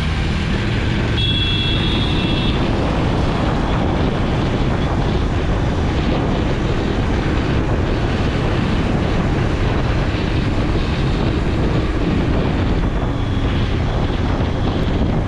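Motorcycle engine running steadily while riding, with dense rumbling road and wind noise. A brief high-pitched tone sounds about a second in and lasts about a second.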